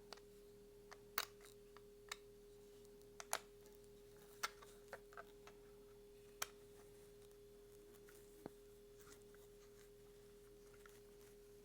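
Scattered light clicks and taps of small hardware being handled: bolts, nuts and a hex key on a holster mounting plate, about eight separate clicks in the first nine seconds, over a faint steady hum.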